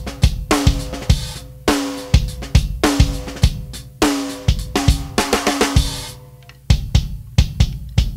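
Drum kit played in a steady groove, recorded with just two microphones: a Shure Beta 52 on the unmuffled 24-inch Gretsch bass drum and a Shure 57 on the snare. Kick thumps under hits that ring on with a sustained tone and cymbal wash; a quicker run of hits about five seconds in, a brief stop near six seconds, then the beat picks up again.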